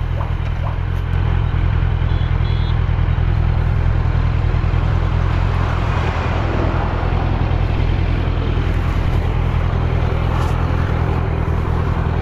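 Kawasaki Z900's inline-four engine running at a steady speed while riding, with wind and road noise.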